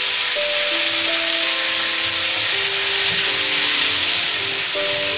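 Vegetables and jackfruit seeds sizzling in hot oil in a wok, stirred with a wooden spatula, under background music of long held notes.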